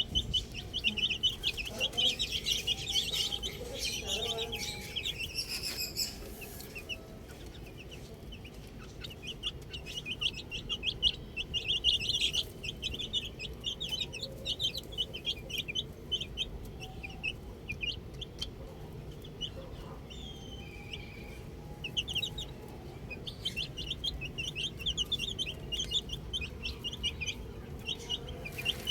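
A group of domestic chicks peeping, many short high peeps packed closely together, busiest at the start and again toward the end with a thinner spell in the middle, and an occasional lower call.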